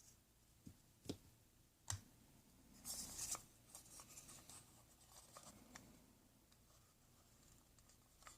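Faint small handling sounds: a few light clicks, then a brief scratchy rustle about three seconds in, followed by scattered soft ticks.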